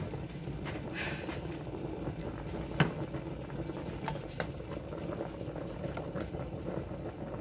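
Large stainless steel pot of water at a rolling boil on the stove, bubbling steadily. A sharp click comes about three seconds in, with a few lighter knocks around it.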